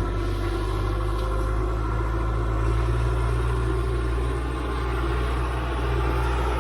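Engine of a piece of heavy equipment running steadily at an even speed.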